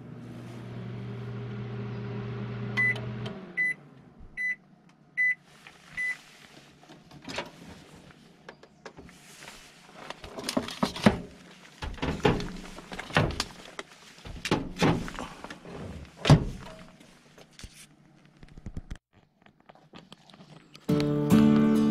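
Haier microwave oven running with a steady hum that winds down about three seconds in, then five short beeps a little under a second apart, the signal that cooking has finished. A run of knocks and clunks follows as the door is opened and the hot pots are handled. Music comes in near the end.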